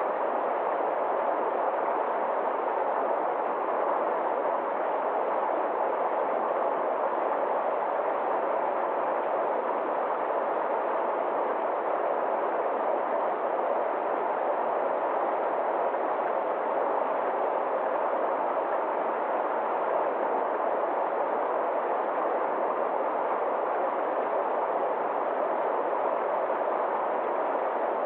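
Forest stream rushing over a small rocky cascade: a steady, even, somewhat muffled water noise that does not change.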